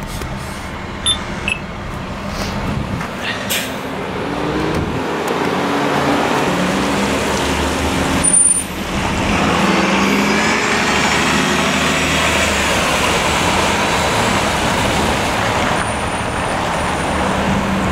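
Busy street traffic, with a city bus and trucks running and pulling away on a wet road, their engine note rising. A short sharp knock with a brief high hiss comes about eight seconds in.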